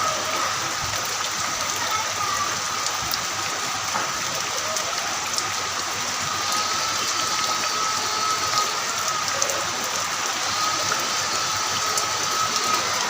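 Heavy rain falling steadily: a dense, even hiss with scattered sharp drips, and a thin steady high tone running through it.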